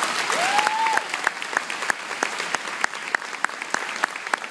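An audience applauding. A short rising cheer comes about half a second in, and one pair of hands claps loud and close at about three claps a second.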